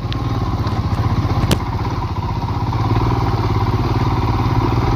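Royal Enfield Himalayan's single-cylinder engine running as the bike pulls away, its firing pulses steady and growing a little louder. One sharp click about a second and a half in.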